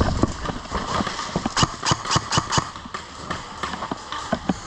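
Sharp clicks and knocks in quick succession during airsoft play, with a fast run of about seven of them about a second and a half in.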